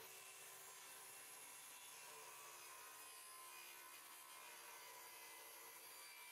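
Handheld circular saw running and cutting a shallow groove across a cedar panel, a faint, steady whine of the blade through the wood.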